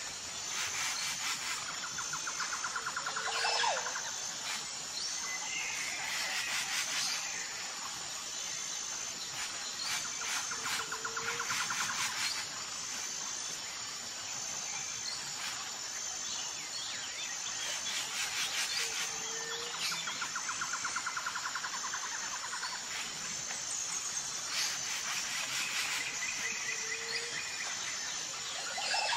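Outdoor nature ambience: birds chirping and calling over a steady pulsed insect trill. The same calls come back about every eight seconds, like a looped background track.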